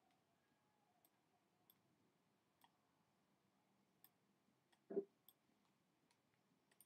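Near silence with faint, scattered computer mouse clicks, about one every second, and one short, louder blip about five seconds in.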